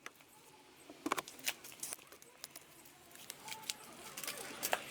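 Scattered light clicks and taps of parts being handled by hand, with faint rustling between them; the sharpest click comes near the end.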